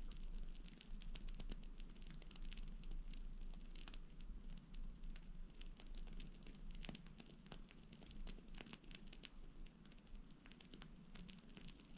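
Wooden-wick candle burning, its flame giving off faint, irregular crackles and small pops.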